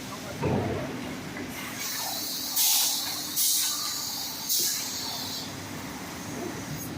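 Wide belt sander running with a steady hum, broken by three short, loud hisses of air about a second apart near the middle.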